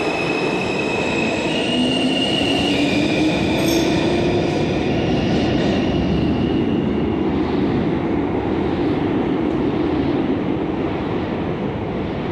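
New York City subway train pulling out of a station. Its electric traction motors whine in tones that step and climb in pitch over a steady rumble of wheels on rail. The sound eases slightly near the end as the last car goes by.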